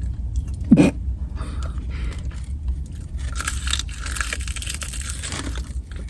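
Eating sounds from a fried-chicken-and-fries meal: crunchy biting and crinkling of a paper food wrapper, heaviest in the middle, over a steady low rumble. A short low thump about a second in.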